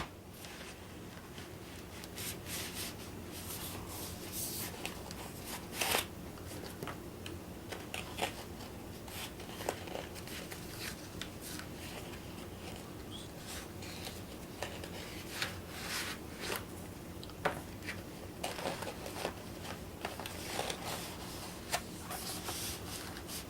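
Packing foam and plastic-wrapped boards being pulled out of a tightly packed cardboard box: irregular rubbing and scraping with scattered sharp clicks and knocks.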